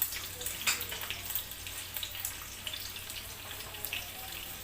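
Hot oil and ghee sizzling in a pan with scattered sharp pops and crackles, as mustard seeds, ginger and green chilies fry in the tempering.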